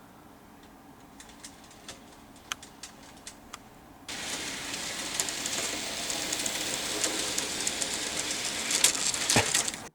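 N-gauge model train running on its track. Faint, irregular clicks at first, then about four seconds in a much louder, dense rattling clatter with sharp clicks sets in suddenly, and it cuts off abruptly just before the end.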